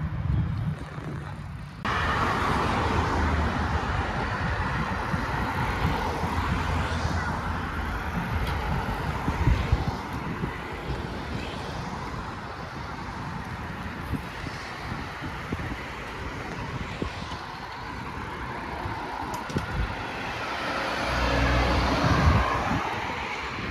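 Outdoor city ambience while cycling along a bike path: a steady rush of air and rolling noise over background road traffic, changing abruptly about two seconds in. Near the end a car passes, its rumble swelling and fading.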